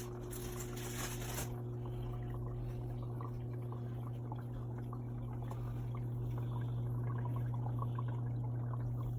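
Farberware portable countertop dishwasher running its wash cycle: a steady pump-motor hum with water splashing and trickling inside, and a brighter hiss in the first second or so.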